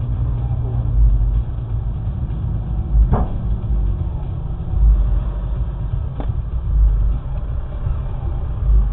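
Road vehicle driving: a steady low engine and road rumble that swells and eases, with two faint knocks about three and six seconds in.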